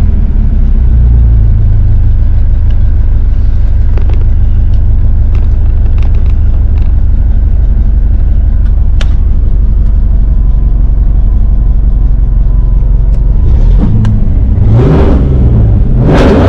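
Fox-body Ford Mustang's 5.0 V8 idling with a steady low rumble, heard from inside the car. Near the end the throttle is blipped twice and the revs rise and fall.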